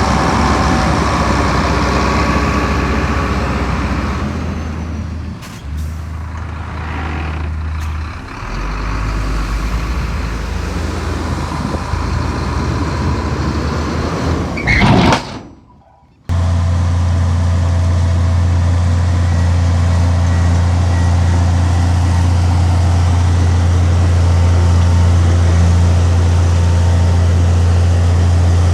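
Heavy diesel engine of earthmoving machinery running with a deep, steady drone, its pitch shifting a few seconds in. About halfway through there is a short loud hiss, and after a momentary drop out the low engine drone carries on evenly.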